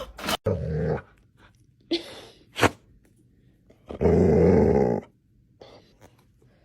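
A dog growling in a few short bursts, the longest and loudest lasting about a second, about four seconds in, with a couple of sharp knocks between.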